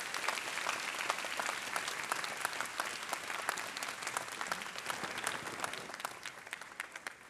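Audience applauding, many hands clapping at once, thinning and fading near the end.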